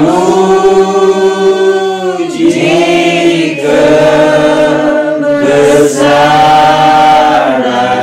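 A small group singing a slow Christian hymn in Indonesian together, holding long notes in drawn-out phrases with short breaks between them.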